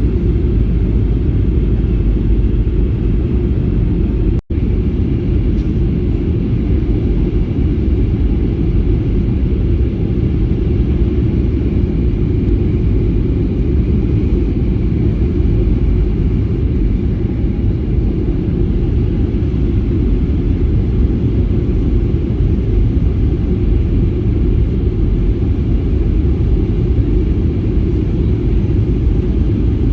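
Airliner cabin noise in flight: a loud, steady low rumble of engines and airflow heard from a window seat, broken only by a momentary dropout about four and a half seconds in.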